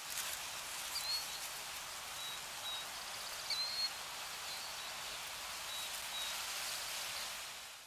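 Outdoor nature ambience: a steady hiss with faint, short bird chirps scattered through it.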